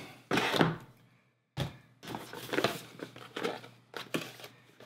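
Handling and opening a small accessory box on a desk: a thunk early on as it is knocked or set down, then rustling and crinkling of the packaging with a few light knocks.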